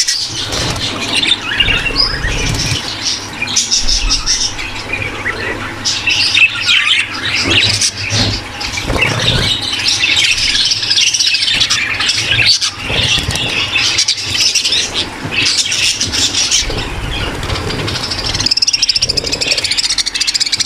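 A large flock of budgerigars chattering, warbling and squawking without a break: the massed calls of a breeding-room flock in breeding condition. A steady low hum runs underneath.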